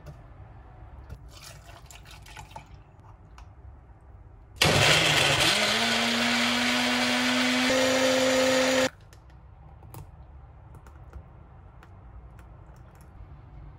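Big Boss personal blender blending a smoothie for about four seconds. The motor spins up quickly to a steady whir and stops abruptly. A few light clicks and knocks come before it.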